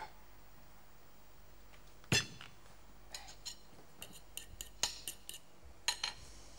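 A fork clinking and scraping on a china plate in a run of short, sharp clicks, with one louder knock about two seconds in.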